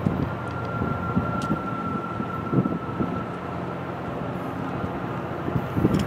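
A train running through the station with a steady rumble and scattered clacks from the wheels on the rails. A thin steady whine sounds for the first few seconds, and the rumble swells near the end.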